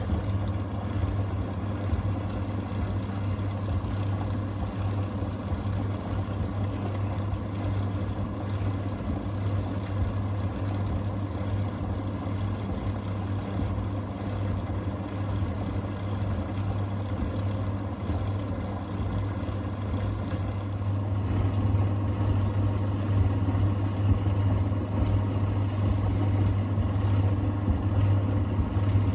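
Thompson TD120 compact vented tumble dryer running: its motor and fan give a steady hum with a strong low drone as the drum turns one way, getting a little louder about two-thirds of the way through.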